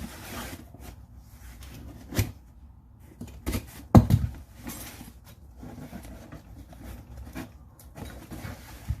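Handling noise of a tool order being unpacked: rustling of packaging with a few sharp knocks, the loudest about four seconds in, followed closely by a second.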